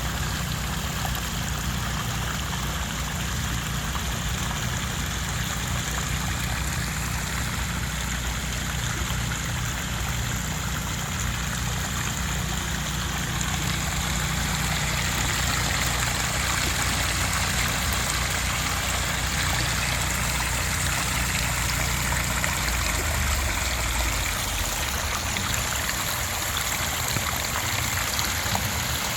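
Water from a moss-rock pondless waterfall splashing and trickling steadily over the rocks, with a low rumble underneath that dies away near the end.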